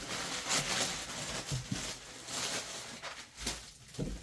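Packaging rustling and crinkling in irregular bursts as items are handled, with a couple of soft knocks near the end.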